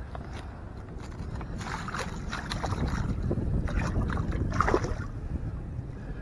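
Clear rubber-mesh landing net dipped into lake water and lifted out, with splashing and water sloshing through the mesh as a fish is let go, in two spells, the second near the end. A low wind rumble on the microphone underneath.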